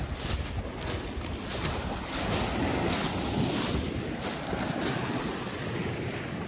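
Wind rushing and buffeting the microphone outdoors: a steady rushing noise with an uneven low rumble.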